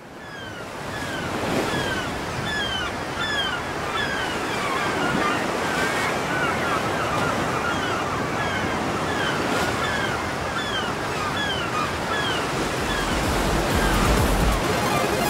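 Waves breaking on a beach, with gulls calling over and over in short, downward-sliding cries. The surf fades in over the first couple of seconds.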